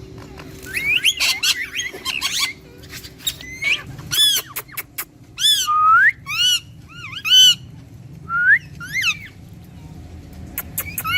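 Ringneck parakeets calling: a short burst of chatter, then a string of sharp screeching calls, each rising and falling in pitch, repeated about twice a second, with more calls near the end.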